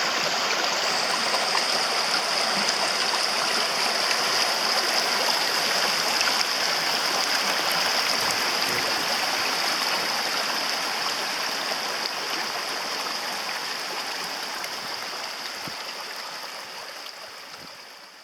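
Mountain stream rushing steadily, fading out gradually over the last several seconds.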